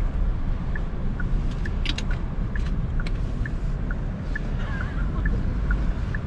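Cabin noise of a Genesis GV70 on the move: a steady low road and engine rumble, with a light regular tick about twice a second and a couple of brief clicks about two seconds in.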